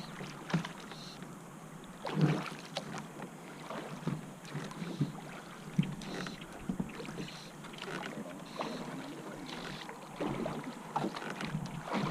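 Drift boat on a river: water sloshing against the hull, with scattered irregular splashes and knocks.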